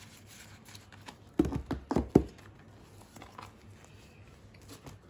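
A clear plastic zip cash envelope being handled on a wooden table: a quick cluster of crinkles and knocks about a second and a half in, then faint rustling.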